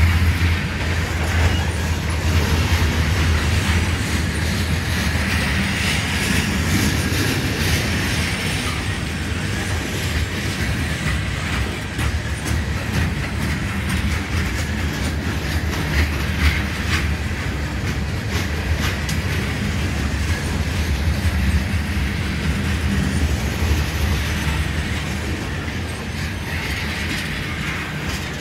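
Freight train's coal hopper cars rolling past at trackside: a steady low rumble of steel wheels on rail, with scattered clicks as the wheels cross rail joints.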